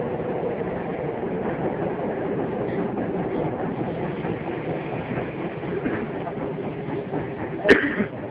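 Tokyo Metro Fukutoshin Line subway train running, heard from inside the car: a steady rumble of wheels and motors with a hum that fades early on. One sharp clank sounds near the end.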